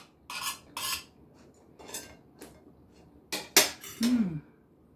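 Fork and knife clicking and scraping on a plate while a sausage is cut, in a few separate strokes. About four seconds in, a short falling 'mmm' from the eater.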